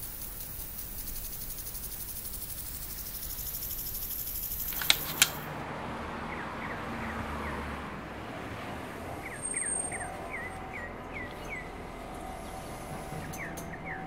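Outdoor ambience: a steady high hiss for about the first five seconds, then two sharp clicks and a change to a quieter background in which a small bird chirps in short runs of quick notes.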